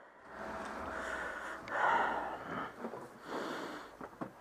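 A person breathing heavily, three noisy breaths about a second apart.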